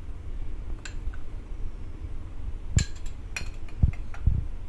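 A steel spoon clinking against a glass bowl and a ceramic bowl as semolina is spooned from one to the other, a handful of separate clinks, with two dull knocks near the end as a bowl is set down on the counter.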